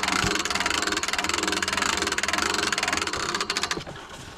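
An engine running steadily, started just before, with a fast even firing beat; it eases off briefly near the end.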